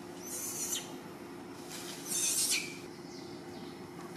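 Baby macaque squealing: several short, high-pitched squeals that fall in pitch, the loudest about two seconds in, over a steady low hum.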